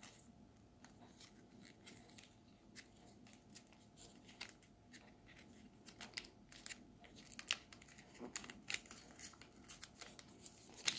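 Faint crinkling and rustling of a sheet of origami paper as the folded model is pinched and creased into shape by hand, in short scattered crackles that come more often in the second half.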